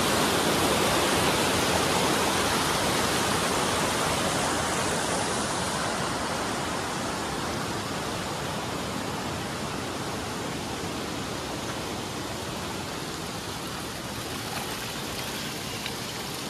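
Mountain stream rushing over rocks, a steady noise of running water that slowly grows fainter.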